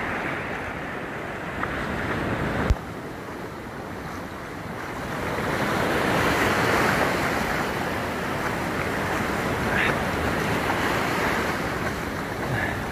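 Small waves breaking and washing up onto a sandy beach: a steady rush of surf that swells about halfway through, with wind on the microphone. One brief sharp click a little under three seconds in.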